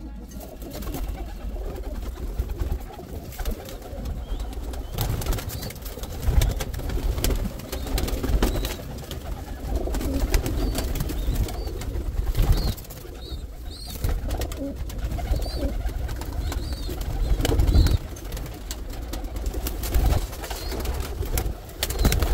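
Pigeons cooing in a loft, mixed with rustling and light knocks of handling, and a few faint high chirps around the middle.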